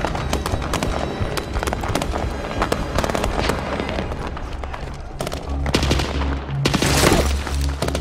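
Scattered gunfire from a battle, many sharp shots, over a dramatic music score. A low pulsing bass comes in about five seconds in, and a louder burst of noise hits about a second before the end.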